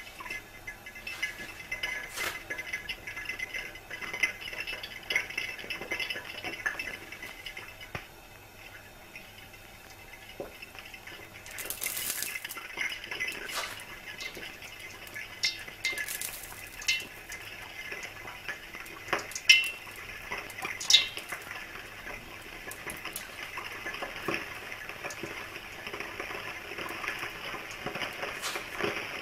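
A metal pan heating on a high flame gives a steady hiss, with scattered metallic ticks and clinks. There are brief louder rushes of hiss about twelve and sixteen seconds in, and two sharp clinks a second or so apart around twenty seconds in.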